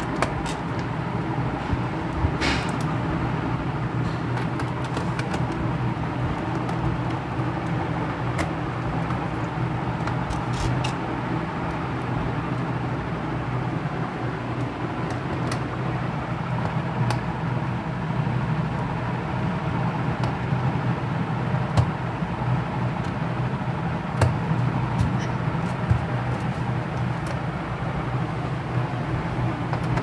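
A steady low hum with scattered small clicks and taps of a hand screwdriver fitting screws into a laptop's bottom cover.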